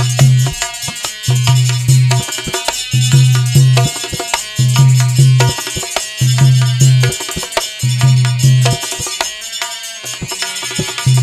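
Instrumental interlude of a Hindi bhajan: a dholak keeps a steady beat, with a pair of deep bass strokes about every second and a half, under held melody notes and bright, jingly high percussion.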